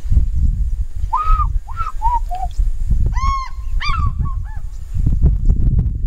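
African fish eagle calling: two runs of ringing yelps, the first about a second in with four notes stepping down in pitch, the second about three seconds in, quicker. A low rumble runs underneath.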